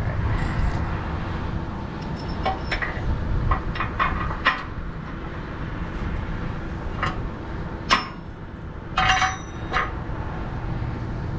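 Sharp metallic clinks and clanks of steel washers, a bolt and hand tools being handled on a chisel plow's frame, the loudest single clink about eight seconds in and a quick ringing cluster about a second later, over a steady low engine rumble.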